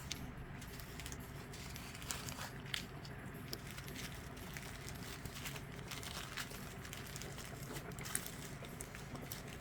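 Faint, scattered soft clicks and crinkles of small plastic bead packets being handled, over a low steady room hum.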